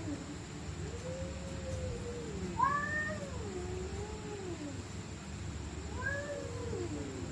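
Angry stray cats caterwauling: three long, wavering yowls that rise and fall in pitch, one after another.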